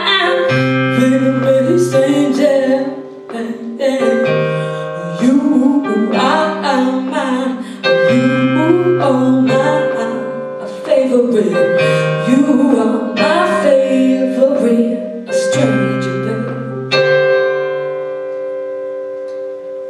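Live band music: singing over electric keyboard and electric guitar. About 17 seconds in, the song closes on a held chord that rings and slowly fades.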